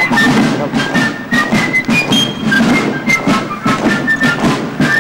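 Military fifes and drums playing a march: a quick, high piping melody over steady drumming.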